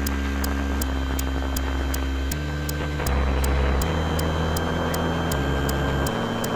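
Improvised electronic synthesizer music: held low bass drone notes that step to a new pitch every second or so, under a hissing noise layer and a steady high ticking at about three clicks a second.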